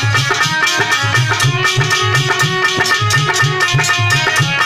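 Instrumental passage of a Hindu devotional song, with no singing: a harmonium plays held melody notes over a hand drum's steady beat of about two to three strokes a second and high jingling percussion.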